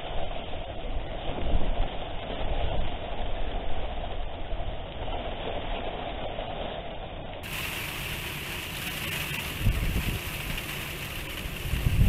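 Typhoon wind buffeting the microphone: a continuous rumbling noise with rain hiss. The sound changes abruptly about seven seconds in, and heavy gusts thump on the microphone near the end.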